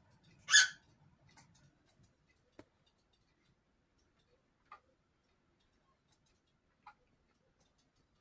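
A cockatiel gives one short, harsh squawk about half a second in, followed by four faint ticks spread over the next several seconds.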